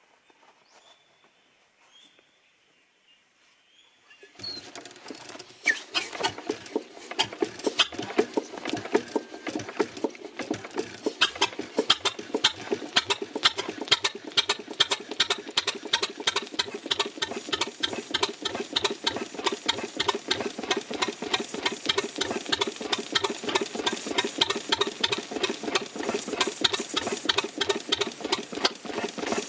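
Standard Gas Engine Co. two-cylinder stationary engine of about 1905 starting up about four seconds in, then running with a rapid, even mechanical clatter. It is kept going on petrol trickled into its priming cup.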